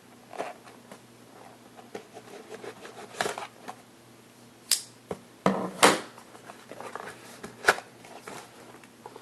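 A cardboard trading-card box being handled and opened by hand: scattered scrapes and rustles, with a few sharp clicks and crackles, the loudest just after the middle.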